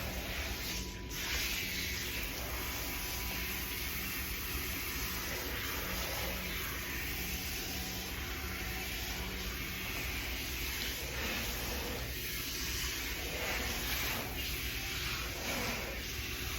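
Water running steadily from a salon shampoo-bowl sprayer, rinsing shampoo out of hair.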